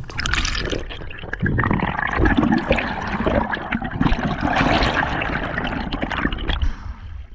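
Water sloshing and gurgling around the camera in the sea, with small clicks throughout; it drops away near the end.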